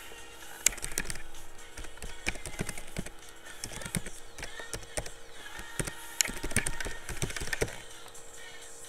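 Typing on a computer keyboard: a run of irregular keystroke clicks with short pauses between bursts.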